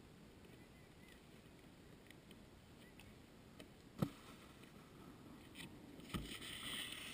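Faint outdoor quiet with a single sharp thump about four seconds in. Near the end, a rider slides past close by and the board or ski edges scrape over the packed snow with a brief hiss.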